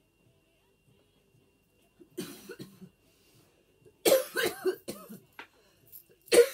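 A woman coughing after inhaling bong smoke: a short cough about two seconds in, then a harder fit of several coughs about four seconds in.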